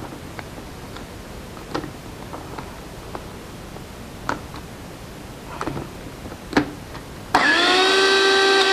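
A few scattered clicks and knocks from handling the blender's jar, then about seven seconds in the blender motor starts, rising quickly to a steady loud whine as it purées chickpeas with sesame and oil for hummus.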